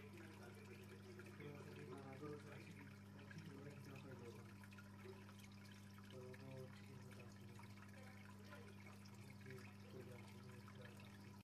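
Faint water trickling and dripping in a garden koi pond, over a steady low electrical hum from the running pond pump and filter.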